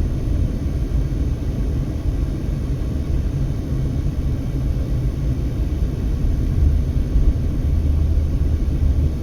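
Steady low rumble of a car driving along: road and wind noise, with no sudden events.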